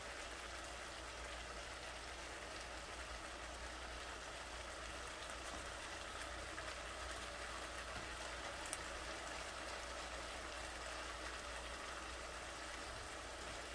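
Stir-fry vegetables and noodles sizzling steadily in a hot frying pan.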